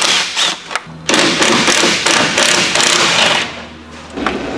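Cordless power driver running in two bursts, the second about two seconds long, as fasteners are backed out to remove a car's front fender.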